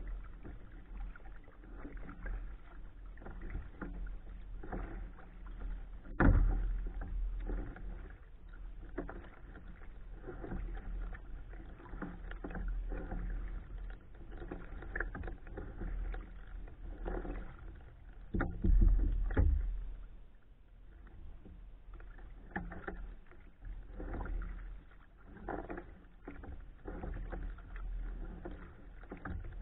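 Kayak paddle strokes dipping and splashing in calm water at a steady rhythm of about one a second. Twice a sharper, louder knock stands out.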